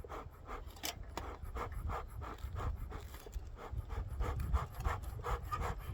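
Bee smoker's bellows being pumped quickly, a rapid series of puffs of air, about three or four a second, while the fuel is still struggling to catch.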